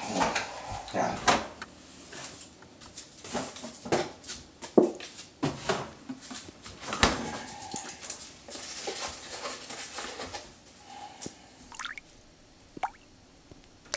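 Refrigerator being opened and a milk carton taken out: a string of irregular knocks, clicks and rattles from the door and its contents, thinning out in the last couple of seconds.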